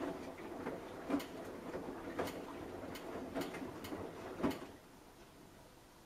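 Samsung Eco Bubble front-loading washing machine drum tumbling wet laundry in the wash phase of a 90°C cotton cycle: sloshing water with irregular knocks as the clothes drop. The drum stops about four and a half seconds in, just after the loudest knock.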